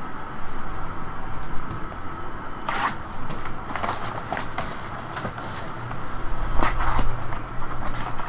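Plastic wrapping on a trading-card box or pack crinkling and tearing in a few short bursts, over a steady low hum.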